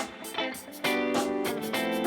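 Background music with strummed guitar chords; the music dips briefly in the first second, then full chords come back in.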